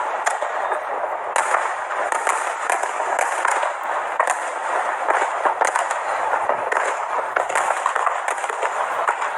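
Fireworks display: a continuous dense crackle of many small pops and bangs, with no single big boom standing out.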